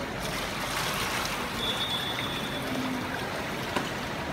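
Steady hiss and trickle of water in an indoor swimming pool, water lapping and running at the pool edge, with no splashing from the swimmer gliding underwater. A faint thin high tone sounds briefly about a second and a half in.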